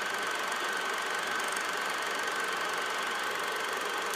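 Old film projector running: a steady mechanical whir with a fast, even clatter.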